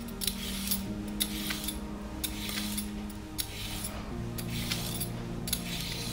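Metal vegetable peeler scraping strips of skin off a raw carrot in repeated short strokes, about one a second, with small clicks. Background music with slow low notes plays underneath.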